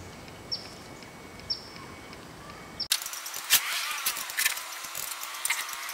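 Outdoor background with short, high, falling bird chirps about once a second. About halfway through it changes abruptly to an irregular clatter of sharp clicks and knocks.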